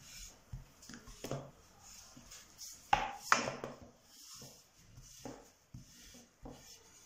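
Long thin wooden rolling pin (oklava) rolling out yeast dough on a countertop: soft rolling with scattered light knocks of the wood on the worktop, two sharper knocks about three seconds in.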